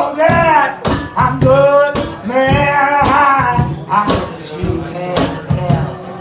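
A man singing live with long held notes over a strummed acoustic guitar, sharp rhythmic strums or shaker-like strokes keeping the beat.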